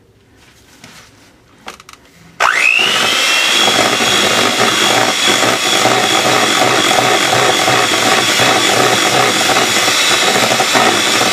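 Electric hand mixer switched on about two seconds in, its whine rising quickly to a steady pitch. It then runs steadily at speed, its beaters whipping butter and strawberry purée in a stainless steel bowl.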